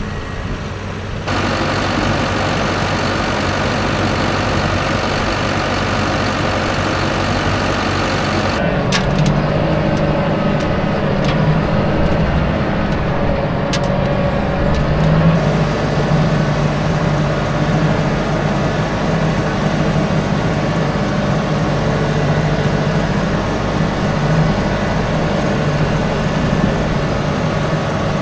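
Heavy vehicle engine running steadily, with abrupt shifts in the sound a little over a second in and again around nine seconds in.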